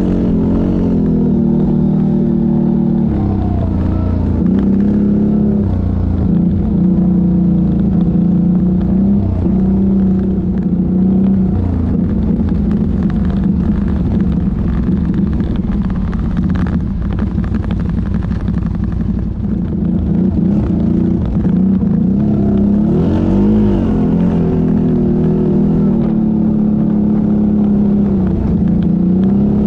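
ATV engine running under way, its pitch rising and falling repeatedly as the throttle is worked.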